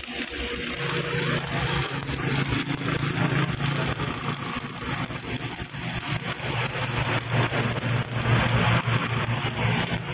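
Electric arc welding on a forklift hydraulic cylinder's leaking cushion area: a continuous sputtering crackle from the arc, with a steady low hum beneath it from about a second in.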